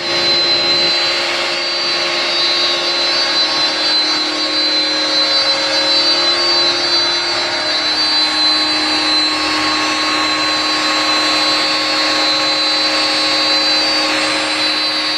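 CNC router spindle running with a steady whine as its bit mills wood.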